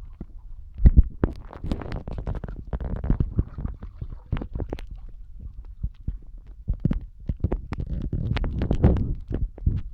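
Handling noise of a phone in a waterproof plastic case: irregular clicks and knocks over a low, continuous rumbling as the plastic shifts and rubs against the microphone.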